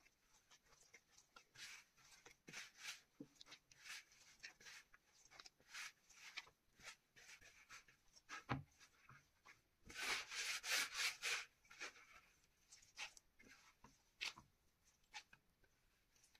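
Gloved hands kneading a soft yeast dough for poğaça in a glass bowl: faint, irregular squishing and rubbing strokes, with a louder run of quick strokes about ten to eleven seconds in.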